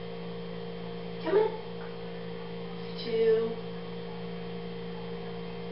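Steady electrical mains hum, broken twice by short, brief sounds about a second and three seconds in.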